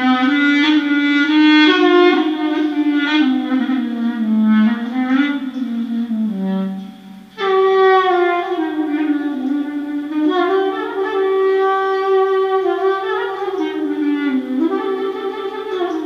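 Solo clarinet playing a taksim, an unmetered improvisation, with the melody sliding and bending between notes. About halfway through it sinks to a soft low note and breaks off briefly, then comes back in loud on a higher note.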